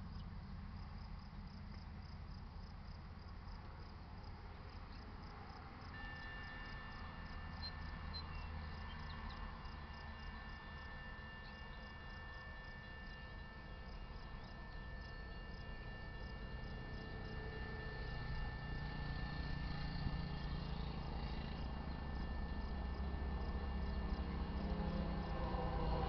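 Grade-crossing warning bell starts ringing suddenly about six seconds in and keeps ringing steadily, signalling the crossing's activation for an approaching train, over crickets chirping. A low rumble of the approaching train builds toward the end.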